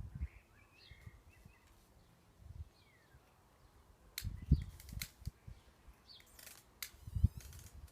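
Faint bird chirps and a short falling whistle, among low bumps and knocks and a few sharp clicks, the loudest bumps about four and a half and seven seconds in.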